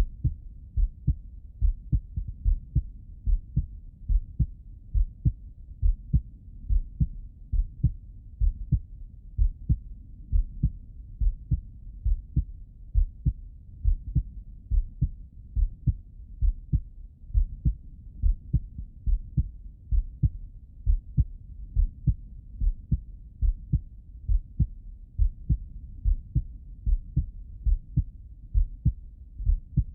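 A man's heartbeat heard through a Littmann stethoscope's bell: regular paired low thuds (lub-dub) at a slow, steady rate.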